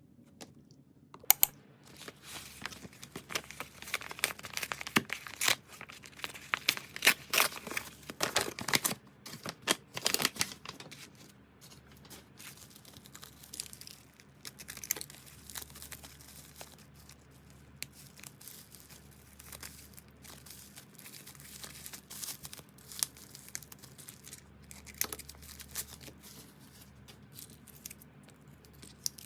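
Packaging being torn open and crinkled by hand: a dense run of crackling tears for several seconds, thinning out to occasional crinkles after about ten seconds.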